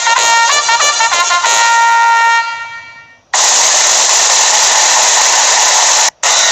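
Two stock sound effects in a row: a short trumpet-like jingle of quick notes ending on one held note, then, a second later, a loud steady hissing, noise-like effect that cuts out for a moment near the end and resumes.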